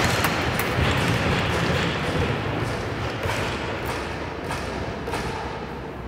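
Reverberant arena hubbub from a box lacrosse game, with scattered sharp knocks and taps of sticks and ball, slowly fading.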